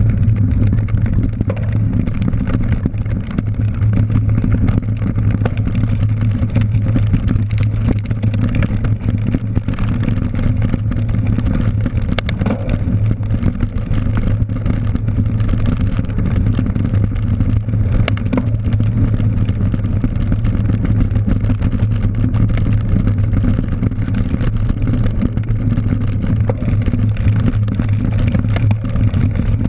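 Riding noise of a cyclocross bike on dirt and grass, picked up by a camera on the handlebar: a steady low rumble from the tyres, wind and frame, with a few sharp knocks from bumps.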